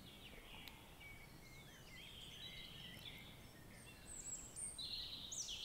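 Faint birdsong, short high chirps and whistles, over a low steady hiss of outdoor ambience.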